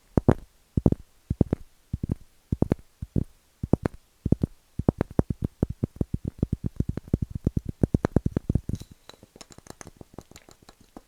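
Tapping on wood: separate knocks, scattered at first, then a quick, even run of about eight taps a second that stops near the end.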